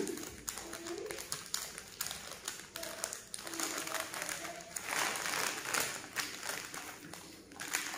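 Gold-plated one-gram jewellery being handled: repeated small clicks and taps as the pieces knock together, with a rustle a little past the middle.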